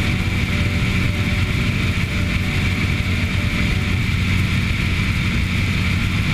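Cessna 150's four-cylinder Continental O-200 engine and propeller running steadily, heard inside the cabin: a constant low drone under a steady rush of air.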